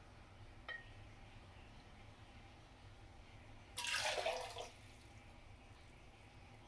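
Water tipped out of a ceramic cup splashing into a sink basin, one brief splash lasting under a second about four seconds in. A single light clink comes about a second before halfway, near the start.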